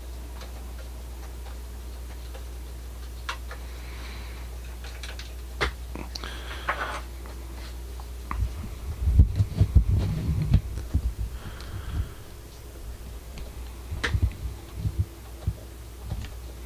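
Steady low hum with scattered small clicks and taps of plastic model parts being handled, then a few seconds of low thumps and rumbling handling noise a little past halfway.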